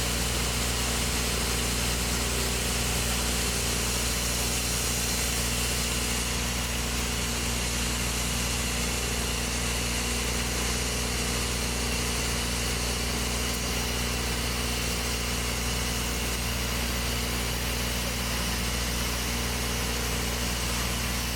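A heavy engine running steadily at a constant speed, a low even hum with no change in pitch.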